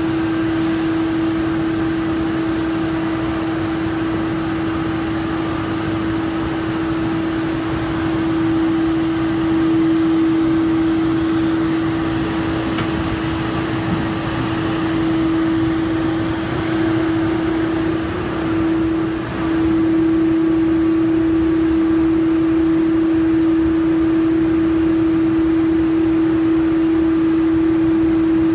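Steady drone of running factory machinery: one constant humming tone over an even hiss. The tone wavers and the sound dips briefly about two-thirds of the way through.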